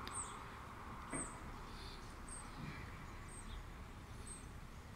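A bird gives a short, high chirp about once a second over faint, steady background hiss.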